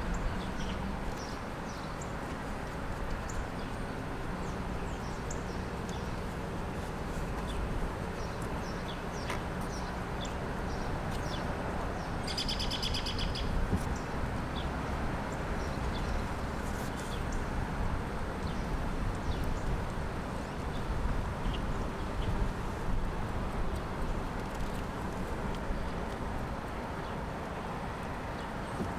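Birds chirping over a steady low background rumble, with short high chirps scattered throughout. A louder, rapid trill lasts about a second and a half around the middle.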